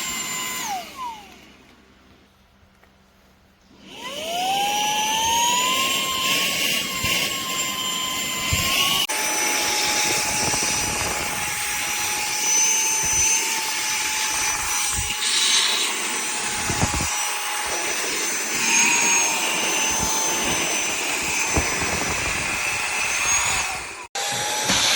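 WADEO 3-in-1 cordless handheld vacuum's brushless motor running with a high whine. It spins down and stops about a second in, then starts again about four seconds in with a rising whine and runs steadily, cutting out briefly near the end.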